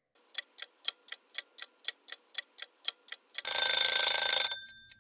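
Countdown-timer sound effect: a clock ticking evenly about four times a second for some three seconds, then a loud bell ring lasting about a second that marks the end of the answer time.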